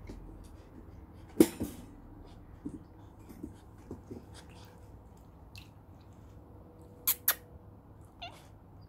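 German Shepherd puppies drinking from a stainless steel water bowl: scattered lapping and sharp knocks against the metal bowl, the loudest about a second and a half in and two close together near the end. A short squeak just before the end.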